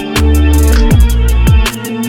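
Background music: an electronic track with heavy falling bass sweeps and a steady drum beat.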